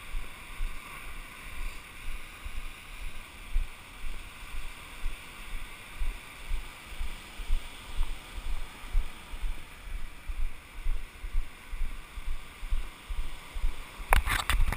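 Footsteps in beach sand picked up through a body-worn camera: dull low thumps about twice a second over a steady hiss of surf and wind. Near the end come a few sharp knocks as the camera is handled.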